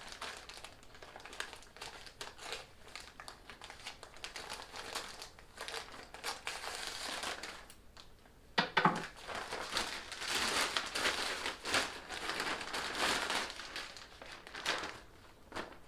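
Packaging crinkling and rustling as a mail-order shipping package is opened by hand, quieter at first and louder from about halfway, with a sharp burst of crinkling near the middle.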